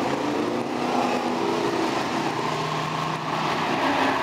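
A pack of Outlaw Street Stock dirt-track race cars running together through a turn, several engines heard at once with their pitch rising and falling.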